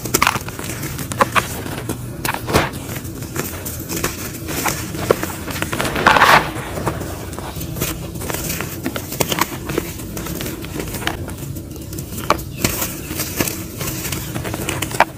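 Hands crushing and crumbling lumps of dry, crunchy mud dirt: irregular crunches and crackles of breaking clods and trickling grains, with a louder crunch about six seconds in.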